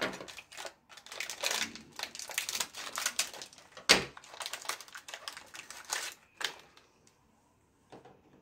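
Hands handling snack packaging and biscuits: crinkling of a wrapper with irregular small clicks and taps as biscuits are picked up and set down on a board, and one sharper knock about four seconds in.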